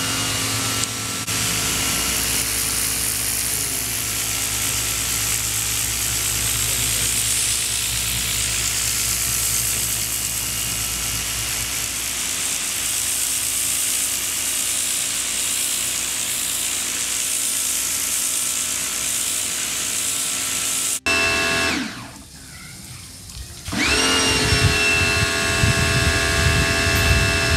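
Bosch AQT 35-12 electric pressure washer running, its motor and pump whining steadily under the hiss of the water jet on concrete. About three quarters of the way through the motor cuts out, winds down for a couple of seconds as the trigger is let go, then spins back up as spraying resumes.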